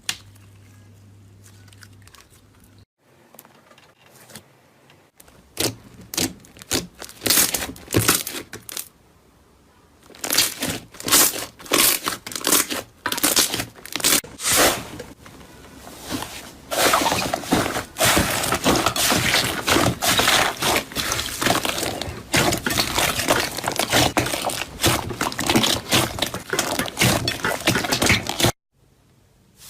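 Slime being squeezed and worked by hand, making irregular crackling clicks and pops. They are scattered at first, then a dense continuous crackle from about halfway, and they stop abruptly near the end.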